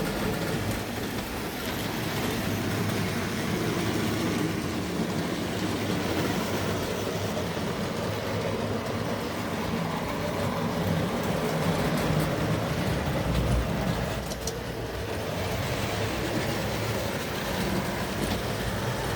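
Tri-ang OO gauge model trains running on the track: a steady electric motor hum with the rumble of wheels on the rails, easing briefly about fourteen seconds in.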